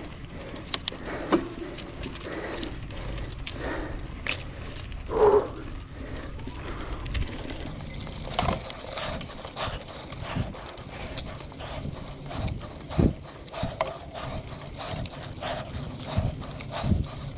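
Mountain bike clattering over a rough, loose dirt trail: a steady run of sharp knocks and rattles, with a brief squeal about five seconds in.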